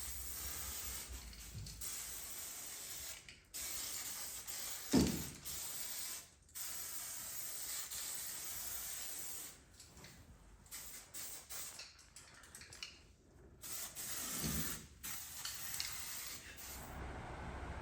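Aerosol spray paint can hissing in long sprays, stopping briefly between passes several times.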